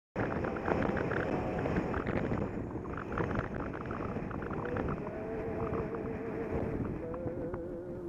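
Wind buffeting the microphone and road noise from a bicycle-mounted camera while riding, with frequent small knocks and rattles. A faint wavering tone comes in about five seconds in.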